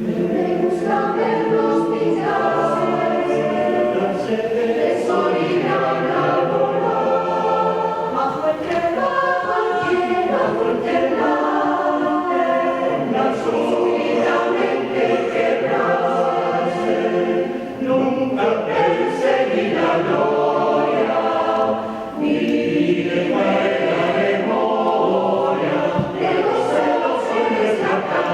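Choir singing in concert, sustained chords of many voices, with two brief breaks between phrases partway through.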